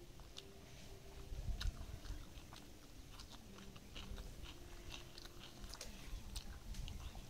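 A person chewing a mouthful of rice and curry, with many small irregular mouth clicks and smacks.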